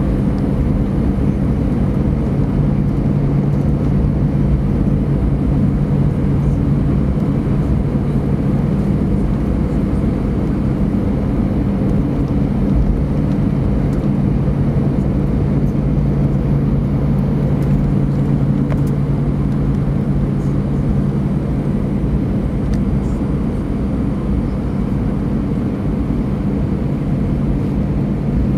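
Airbus A320 cabin noise while taxiing after landing: the engines run at low thrust, heard through the fuselage as a steady rushing drone with a low hum.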